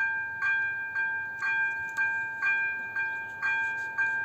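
Electronic warning bell of an AŽD 97 level-crossing signal, striking about twice a second over a steady ringing tone: the crossing is active with its barriers down, warning of an approaching train.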